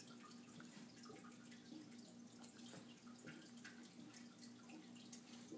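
Near silence: a faint steady hum with scattered soft ticks.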